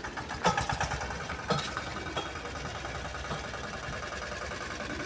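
Engine running steadily with a low rumble, with a few sharp knocks about half a second and a second and a half in.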